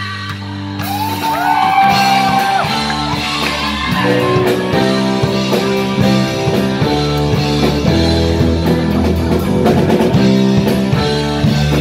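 Live rock band with a woman singing: bass, keyboard and guitars under a sung line that slides and wavers in pitch, then the drums pick up and the full band plays on from about four seconds in.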